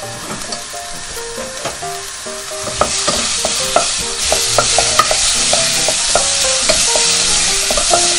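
Diced onion sizzling in hot salad oil in a pot, stirred with a wooden spatula that clicks and scrapes against the pan. The sizzle grows louder about three seconds in as the onion heats.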